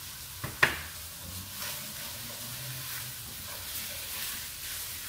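Soy-glazed potatoes sizzling faintly in a hot pan just off the heat, with two sharp knocks about half a second in, then a wooden spatula stirring them near the end.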